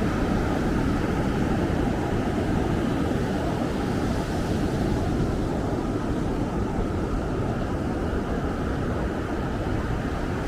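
Steady roar of ocean surf, with wind rumbling on the microphone.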